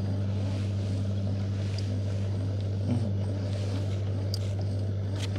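Small boat engine idling with a steady low hum.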